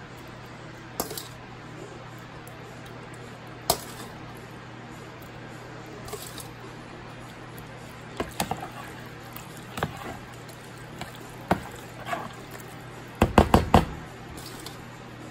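Slotted spoon stirring elbow macaroni through a runny cheese sauce in a bowl: scattered wet squelches and clicks of the spoon against the bowl, with a quick run of four or five loud knocks near the end.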